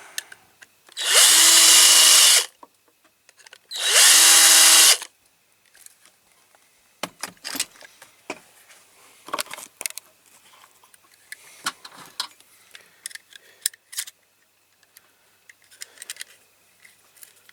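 An electric drill runs in two short bursts, its motor pitch rising as each starts, drilling out a rivet in the base of a diecast model car. After that come scattered light clicks and taps.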